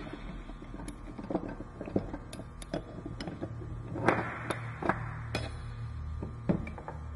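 Irregular metal clicks and clinks of a wrench and socket tightening a nut on a steel anchor shackle bolt, with the tools and fittings knocking on a tabletop. The sharpest knocks come a little past the middle.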